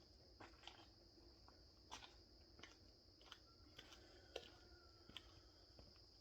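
Near silence: faint scattered clicks and taps over a steady faint high-pitched whine.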